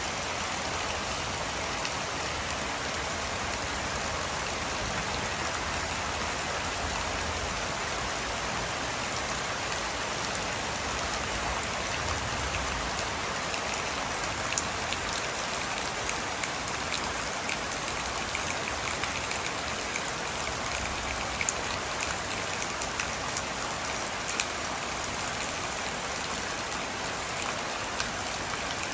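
Steady rain falling on forest foliage: an even hiss, with the occasional sharper tap of a single drop.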